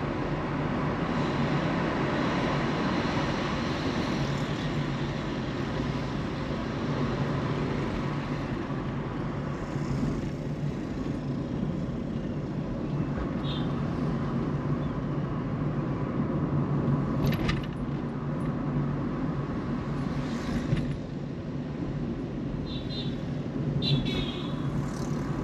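Car driving along a road: a steady drone of engine and tyre noise. A few short high chirps come near the end.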